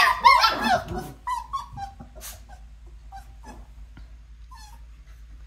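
Australian Shepherd puppies whining and yipping in high, wavering cries, densest in the first second or so, then trailing off to a few faint whimpers.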